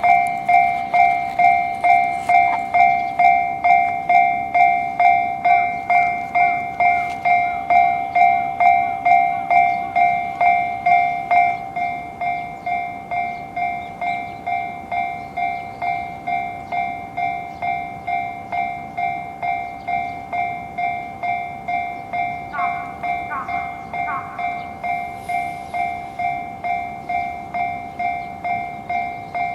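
Japanese railway level-crossing warning bell ringing its fast, steady 'kan-kan' about two to three strokes a second, with a train passing. The bell drops in loudness about a third of the way through, and three short rising tones sound near the three-quarter mark.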